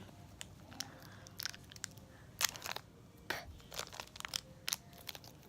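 Packaging crackling and crinkling in scattered sharp snaps as a small toy package is opened by hand.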